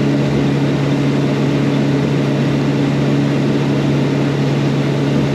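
Boat's outboard motor running steadily at cruising speed, a constant hum over the rush of water and wind.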